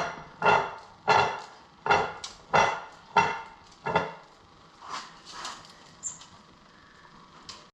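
A series of sharp metal strikes, about one every two-thirds of a second, each ringing briefly before dying away, getting fainter in the second half.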